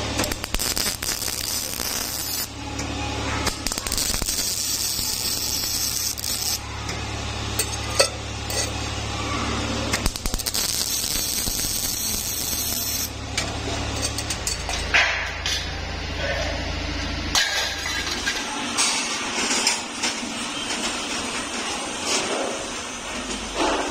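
MIG welding a steel bracket onto a sheet-metal air-filter canister: the arc crackles and hisses in several runs of a few seconds each, over a steady low hum that stops about two-thirds through. Later come scattered metallic clinks and knocks as the metal parts are handled.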